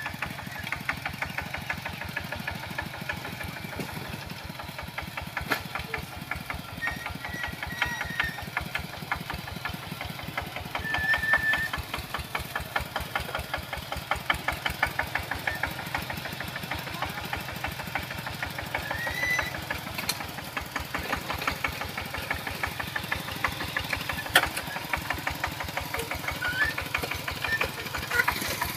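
Kubota walk-behind power tiller's single-cylinder diesel engine running steadily under load while it ploughs soil, with a rapid, even knocking beat of firing strokes.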